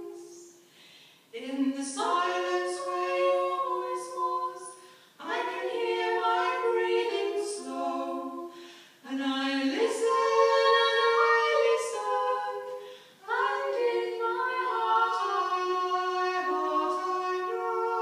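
Two women singing unaccompanied, in phrases about four seconds long with short pauses for breath between them.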